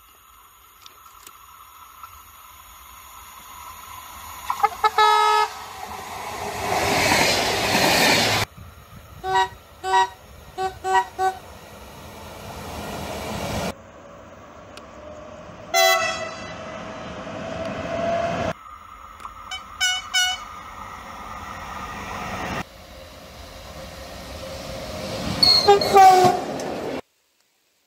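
Train horns sounding in a run of short spliced clips: a longer blast, then bursts of quick short toots, further blasts, each over the rising rumble and clatter of a passing train, with abrupt cuts between clips.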